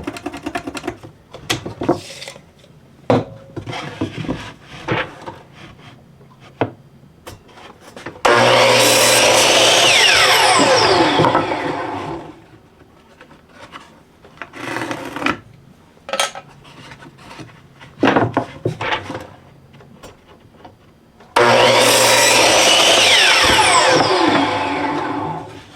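Power saw cutting cedar fence pickets to length twice. Each cut starts suddenly and runs about three seconds, then the blade spins down with a falling whine. Knocks and clatter of the boards being handled come between the cuts.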